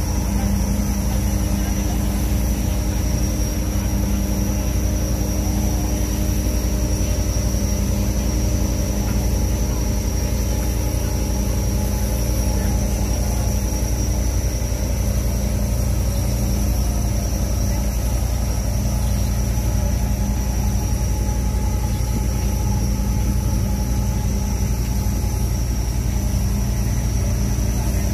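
Purse seiner's onboard machinery running steadily: a constant low drone with an even hum that does not change.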